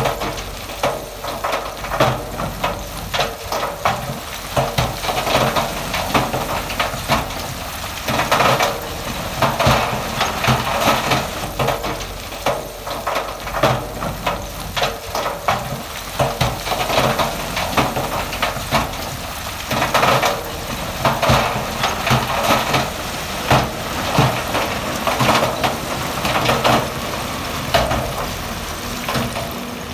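Heavy diesel earthmoving machine running under load while loose stone clatters and grinds, with many irregular sharp cracks of rock on rock.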